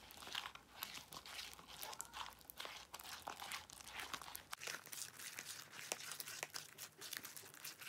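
Hands squishing and kneading sticky white Elmer's glue slime in a bowl, making a dense run of irregular wet crackles and clicks. The slime is freshly activated with Tide detergent and is still tacky, just starting to pull away from the sides of the bowl.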